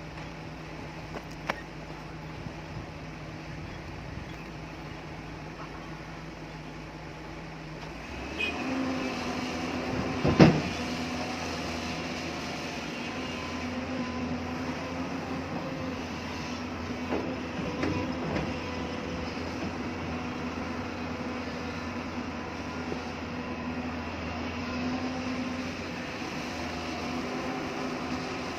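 Hyundai excavator's diesel engine running steadily, then rising to a louder, higher working note about eight seconds in. A single loud metallic clank comes about two seconds later, with a few lighter knocks afterwards.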